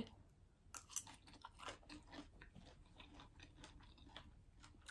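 Close-up chewing of a mouthful of salmon arugula salad: faint, irregular small crunches and mouth sounds.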